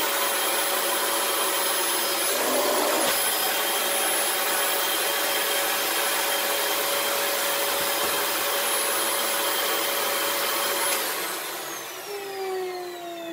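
Dyson DC18 Slim Ball upright vacuum running steadily, a dense airflow rush with a steady whine. It is switched off about eleven seconds in, and the motor winds down in falling tones.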